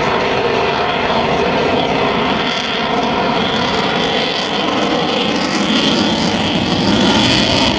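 Steady, loud jet roar of an F-22 Raptor's twin Pratt & Whitney F119 afterburning turbofans as the fighter manoeuvres overhead.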